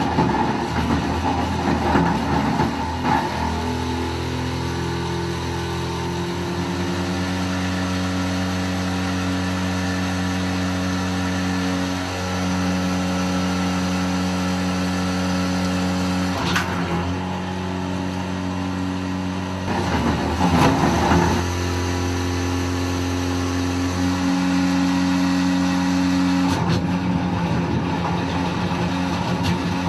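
Grundfos SEG sewage grinder pump running with a steady motor hum. Several brief rougher noisy bursts come over it at the start, around the middle and near the end.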